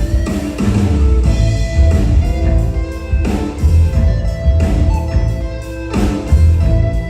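Band music: guitar over bass and drums with a steady beat.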